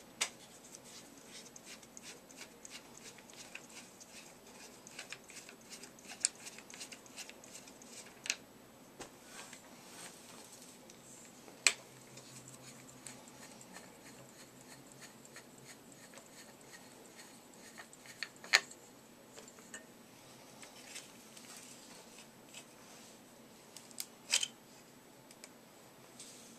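Aluminium handle tubes and plastic fittings of a Swivel Sweeper being handled and taken apart: scattered light clicks and taps, with a handful of sharper, louder clicks.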